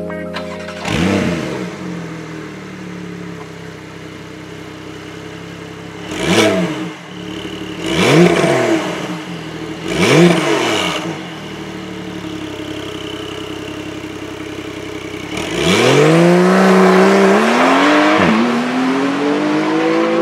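Porsche 911 Targa flat-six breathing through an Akrapovic titanium slip-on exhaust in normal mode, heard from behind the tailpipes. It idles, is blipped four times (about 1, 6, 8 and 10 seconds in), then pulls away accelerating, with one upshift near the end.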